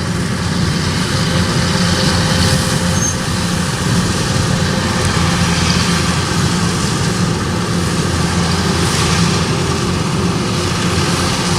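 Kubota DC105X combine harvester's 105-horsepower engine running steadily as the tracked machine drives on.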